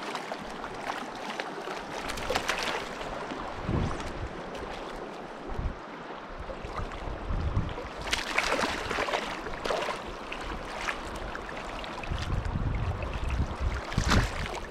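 Shallow stream water rushing and rippling around the wader, with splashing from a trout in a landing net held in the current, loudest about eight seconds in and again near the end. Low wind rumble on the microphone at times.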